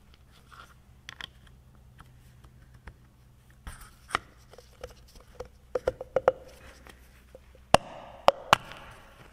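Sealed steel ball bearing being worked by hand over a splined shaft into its steel housing: scattered light metal clicks and taps. A quick run of small ticks with a faint ring comes past the middle, and three sharp clicks come near the end.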